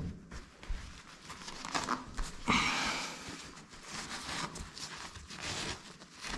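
A canvas drop sheet rustling as it is handled, then a cloth rag rubbing and wiping around the tap opening in the tiled wall in several uneven scrubbing strokes.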